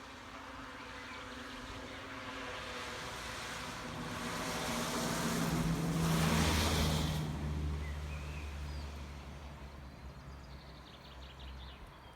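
A motor vehicle passing by: its engine and tyre noise build up, peak about halfway through with a slight drop in pitch, then fade away. A few faint bird chirps sound in the background.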